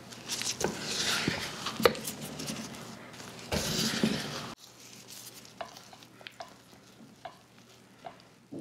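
Silicone spatula folding flour into a wet sugar-and-butter mixture in a glass bowl: close-up scraping and rustling with sharp taps against the glass. About four and a half seconds in it drops suddenly to quieter stirring with a few light clicks.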